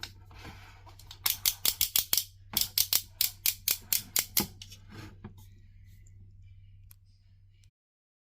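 Two quick runs of sharp clicks and taps, about five a second, from hands handling a toy figure and its packaging during unboxing, over a low steady hum. The clicks thin out and stop near the end.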